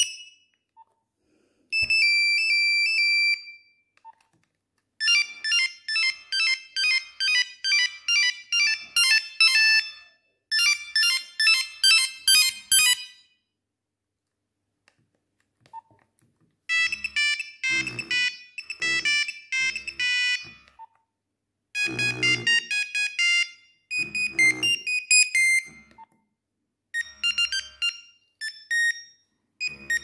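Nokia 3310 playing its built-in monophonic ringtones one after another, each a short tune of rapid high beeping notes, about six in turn with brief silent gaps between them as each is previewed from the ringtone menu.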